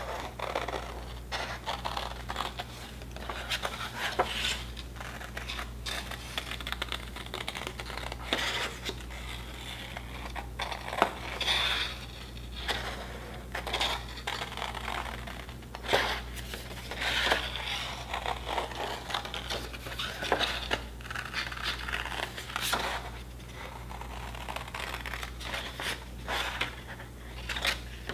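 Scissors snipping through drawing paper in short, irregular cuts, with the paper sheet rustling and crinkling as it is turned.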